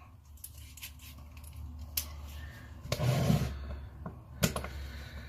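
A Torx screwdriver working screws out of a sander's plastic housing: a few sharp clicks of the tool and plastic, with a louder scuffing noise about three seconds in, over a low steady hum.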